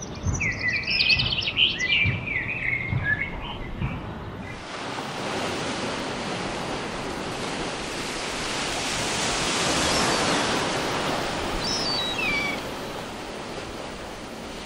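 Quick, high bird chirps over faint low beats for about four seconds, the sound of an animated channel logo. Then sea waves break and surge against a stone embankment in a steady rushing wash that swells about ten seconds in. A brief bird call comes near the end.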